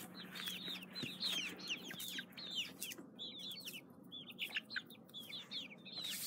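A group of young chicks peeping: many short, high, falling peeps overlapping one another continuously.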